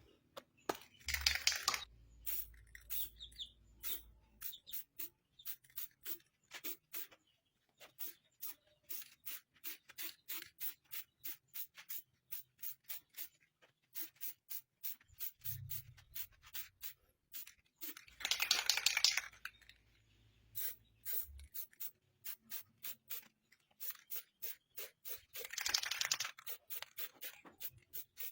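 Aerosol spray-paint can spraying black paint in three short hissy bursts, each about a second long, spread out over the stretch. A steady run of quick, sharp ticks, several a second, goes on between and under them.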